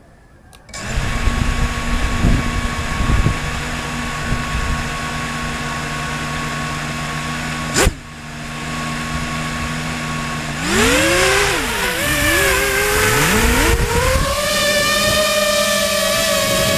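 FPV quadcopter's electric motors and propellers spin up less than a second in and run at a steady low speed. A single sharp click comes near the middle. The motors then throttle up for take-off, several whines rising and wavering in pitch as the craft lifts off.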